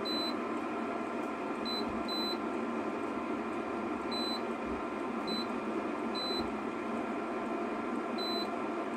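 Induction cooktop's touch controls giving about seven short, high beeps at irregular intervals as its buttons are pressed, over the steady whir of its internal cooling fan.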